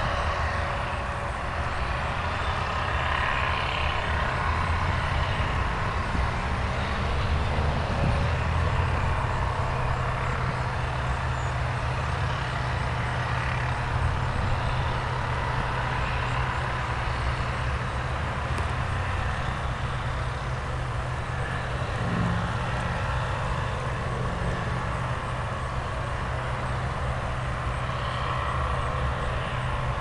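Steady low rumble of road traffic with an engine-like hum underneath, unbroken throughout.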